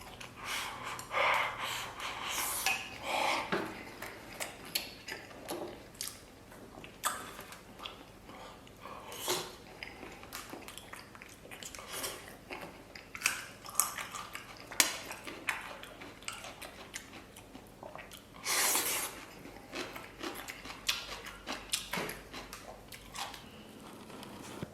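Close-miked eating of soy-braised beef ribs: bites and chewing, with scattered sharp clicks and clinks against a dish throughout and a longer rustling burst near the end.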